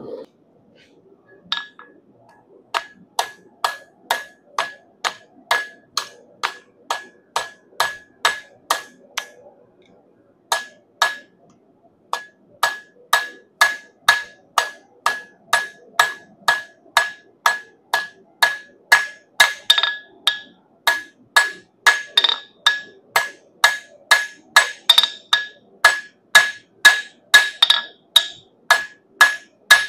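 Hand hammer forging a 3/8-inch round steel bar on an anvil, about two blows a second, each with a ringing note. The blows break off briefly about ten seconds in, then resume and get louder.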